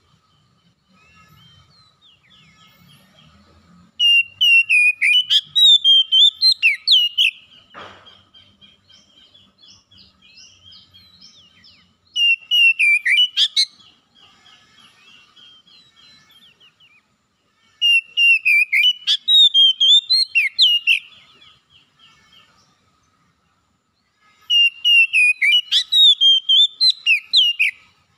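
Oriental magpie-robin singing: four loud phrases of rapid, whistled notes that swoop up and down, each a few seconds long and a few seconds apart, with faint chattering in between.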